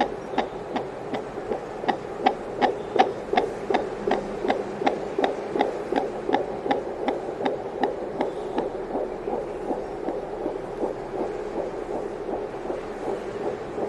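Fetal heartbeat through a handheld fetal Doppler's speaker: fast, regular whooshing pulses, about three a second, over a steady hum. The pulses lose their sharper edge about nine seconds in.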